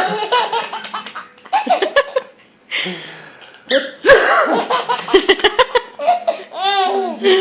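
Baby belly-laughing in repeated bursts, set off by an adult's sneezes. A sharp loud burst comes about four seconds in, then a quick run of short laughing pulses.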